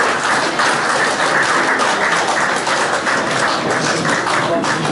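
Group of people applauding steadily.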